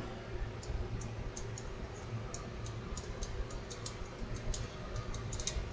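Faint, irregular light clicks and ticks from small parts of a cassette deck's tape mechanism being handled and brushed, over a low steady hum.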